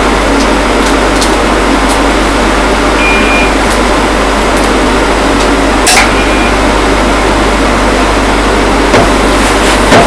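Steady loud hiss with a short high beep about three seconds in. About six seconds in comes a sharp relay click as the remote-controlled mains socket switches the lamp on, then another brief beep and a couple of lighter clicks near the end.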